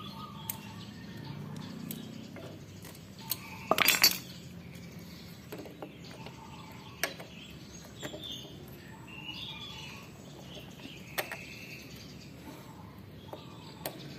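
Scattered light metallic clicks and clinks of a motorcycle starter motor's armature and housing being handled by hand, with the loudest cluster about four seconds in.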